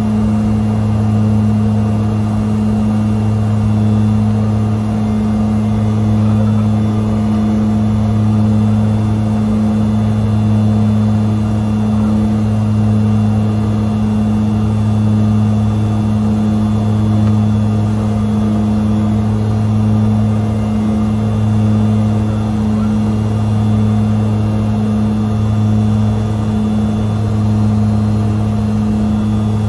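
The twin Garrett TPE331-12 turboprops of a Metro 23 heard inside its cockpit: a loud, steady low propeller drone, the low note swelling and fading slowly every couple of seconds.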